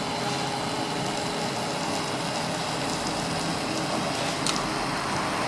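Induction melting furnace running while heating: a steady hiss with faint steady whining tones, and a short click about four and a half seconds in.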